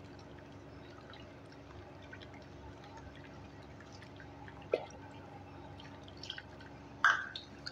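Faint wet squishing and slapping of a hand beating whipped ghee with milk in an aluminium bowl, with a louder squelch about seven seconds in.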